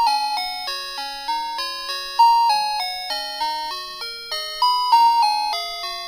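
Electronic chip melody of a Christmas tune in buzzy beeping tones, with a lower second voice under it. The notes change about three times a second, each starting sharply and fading, like a musical greeting card or ice-cream-van chime.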